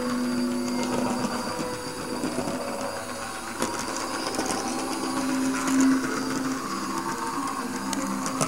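Small electric motor of an HO-scale model tram whirring steadily as the tram runs along the track.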